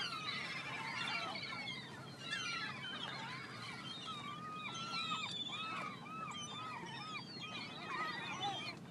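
A flock of seagulls calling over one another, with many short arching cries overlapping throughout. In the middle one bird gives a run of repeated calls, about two a second.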